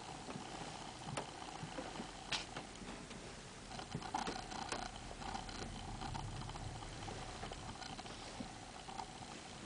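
Faint indoor room tone: a steady hum with scattered small clicks and knocks.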